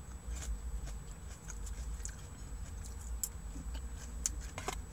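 A person chewing food with her mouth closed: soft, irregular clicks of chewing over a steady low hum.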